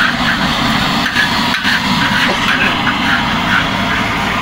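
Rice being stir-fried in a large steel wok over a steady, loud gas burner, with the metal spatula scraping the wok in quick repeated strokes and an occasional clack.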